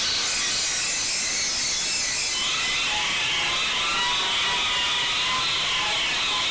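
A wheezing sound effect, heavily processed with audio effects into a steady, filtered hiss. About two and a half seconds in it shifts lower, as the next effect version begins.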